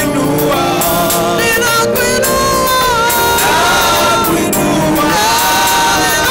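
A woman singing a gospel worship song into a microphone over instrumental backing, with long held notes that bend in pitch.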